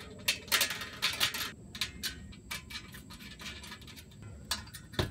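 Irregular small metallic clicks and scrapes of a bolt, nut and washers being fitted by hand to a steel bracket inside the smoker's steel center section, with a sharper knock near the end.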